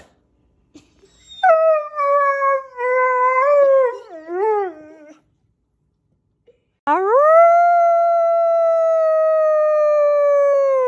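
A dog howling twice: a first howl that wavers up and down and breaks into short warbles near its end, then a longer steady howl that drops in pitch as it stops.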